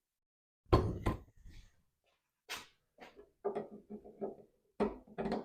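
A few sharp knocks and clunks of parts and tools being handled on the car, then a quicker run of short, lighter knocks near the end.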